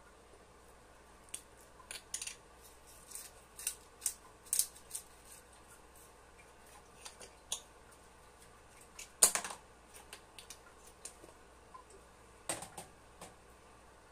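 Scattered light clicks and taps of kitchen utensils as pepper and salt are added to a pan of creamy sauce, with one sharper knock about nine seconds in.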